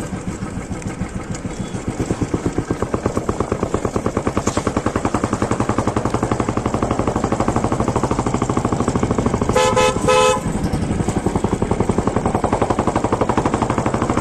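Royal Enfield Bullet 350's single-cylinder engine running with a steady, rapid thump while riding, getting louder about two seconds in. A horn sounds twice in quick succession about two-thirds of the way through.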